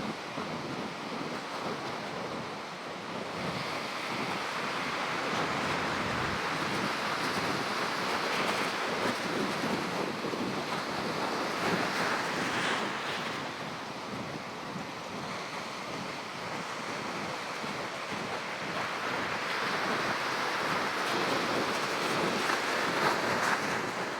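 Wind buffeting the microphone over the rushing, splashing water of a small boat under way through waves, swelling and easing every few seconds.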